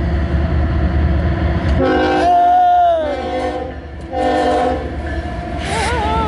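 CSX diesel locomotive at the head of an empty coal train sounding its multi-tone air horn in three blasts beginning about two seconds in, the first the longest, over the low rumble of the locomotives' diesel engines.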